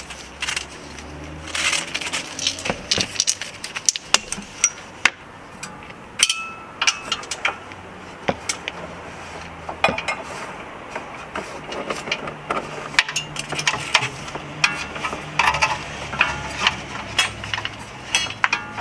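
Irregular metallic clicks, clinks and knocks of a handbrake cable, brake parts and hand tools being handled at a car's rear wheel hub while a new handbrake cable is fitted.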